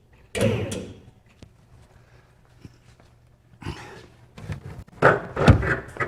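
Irregular knocking and scuffing of work noises, with a short noisy rush near the start and a heavy thump about five and a half seconds in.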